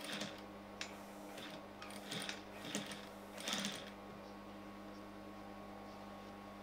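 Sewing machine stitching in several short runs during the first four seconds, then stopping, leaving a steady low hum.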